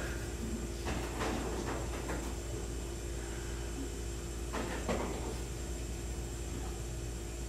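Steady low hum of room ambience with a faint steady tone, broken by a few soft knocks and rustles about a second in and again about four and a half seconds in.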